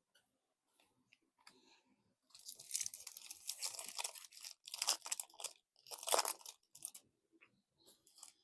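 A collector booster pack's wrapper being torn open and crinkled. The crackling comes in irregular bursts from about two seconds in until about seven seconds.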